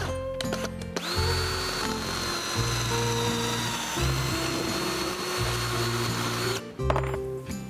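Power drill running for about five and a half seconds, its high whine sagging slightly, then stopping briefly and restarting about halfway through. Background music plays throughout.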